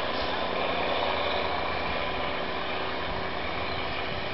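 Diesel engine of a departing Taiwan Railways DR2700 railcar: a steady drone that fades slowly as the train pulls away.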